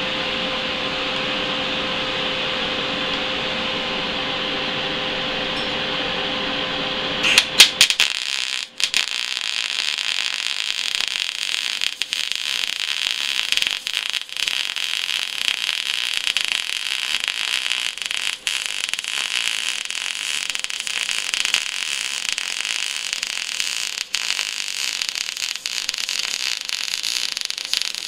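Steady hum for about seven seconds, then a MIG welding arc strikes with a few sharp pops and runs as a continuous crackling hiss to the end, broken by a few brief pauses, as a vertical-up weld is run with an Eastwood MIG 250 on .025 wire and 75/25 gas.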